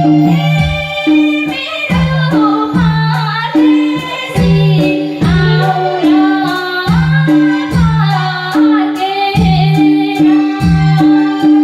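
A woman singing a Nepali song over a backing track with a steady beat and a repeating bass line.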